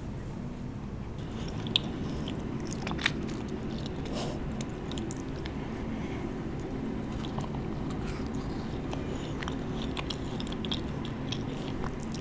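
Close-miked biting and chewing of macarons: the crisp shells crack in sharp, irregular clicks and crunches over a steady low hum.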